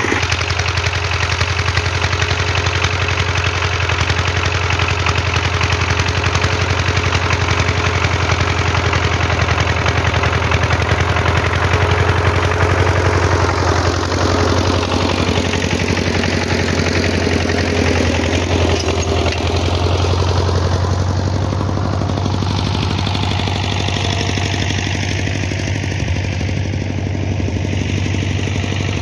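Skaut walk-behind tractor's engine running steadily while pulling a plough through the field. In the second half it moves away, its sound slowly shifting in tone and growing a little fainter.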